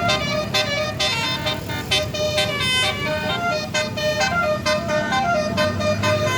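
Tourist bus Telolet Basuri musical horn playing a fast tune of short notes that keep changing pitch.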